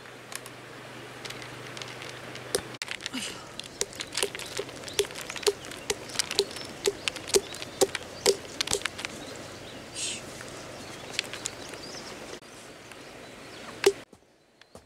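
A hollowed-out pumpkin is knocked over and over, about two hollow knocks a second for several seconds, to shake its seeds out onto a woven bamboo tray. Scattered clicks and a brief scrape sound around the knocks.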